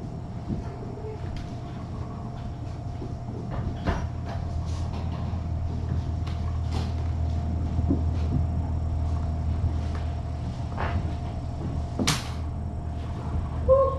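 Steady low room hum with a faint constant tone, under scattered light knocks and clicks; one sharper click about twelve seconds in.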